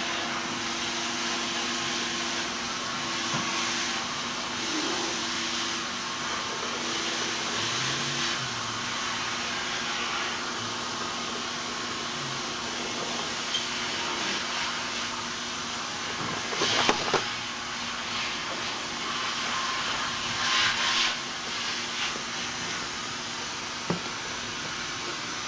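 Vacuum cleaner running steadily, a hiss with a low hum beneath it, broken by a few brief knocks and bumps, the loudest about two-thirds of the way through.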